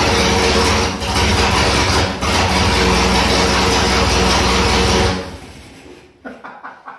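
The 1952 Citroën B11's 1.9-litre four-cylinder engine running steadily on its first start after about forty years standing, dipping briefly twice, then stopping about five seconds in.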